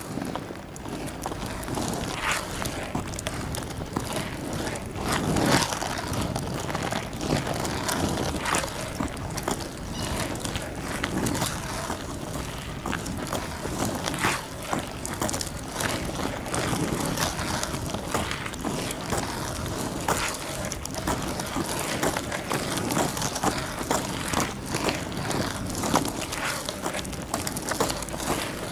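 Freeline skate wheels rolling over rough asphalt: a steady gritty rumble broken by frequent small clicks and scuffs as the skates turn and pivot.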